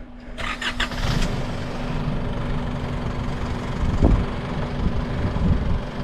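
A two-wheel-drive vehicle's engine running as it crawls up a rocky off-road obstacle. There is crackling in the first second and a single thump about four seconds in.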